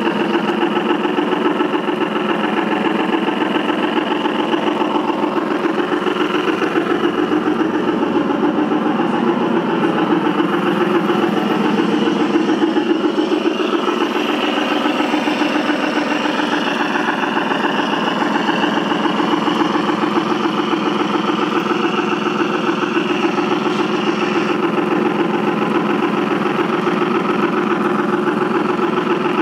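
KM1 Gauge 1 scale model of a BR 44 steam locomotive running along the track: a steady mechanical running sound with a rapid, even pulsing.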